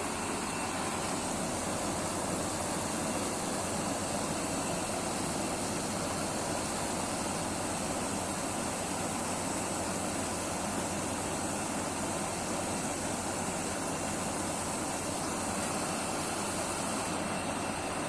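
Window air conditioner running steadily, freshly recharged with R410a after a leak repair: a constant rushing noise of its fan and compressor while the refrigerant pressure settles.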